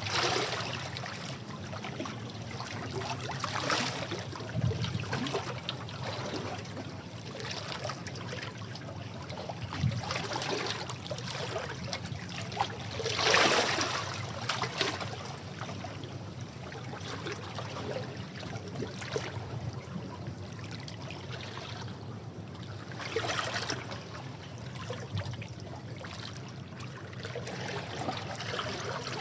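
Sea waves washing over rocks: a continuous rush of water that swells and falls back every few seconds, with the biggest surge about halfway through.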